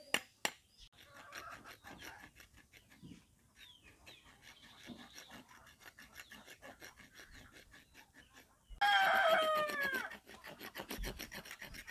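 A couple of sharp knocks of a chopper blade on a coconut shell, then faint scraping as the husk fibre is cleaned off the nut. About nine seconds in, a rooster crows loudly once, the loudest sound here.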